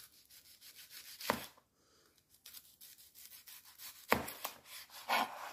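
Chef's knife slicing a red onion into thin rings: a quick run of crisp cuts with the blade tapping the board, with a few louder knocks among them.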